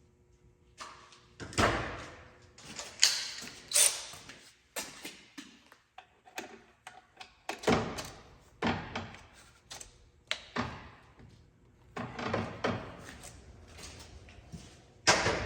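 Wrench and ratchet clanking and knocking against metal in a cramped engine bay, with about a dozen irregular sharp knocks and rattles. The tools are being worked onto a tight fitting to break it loose.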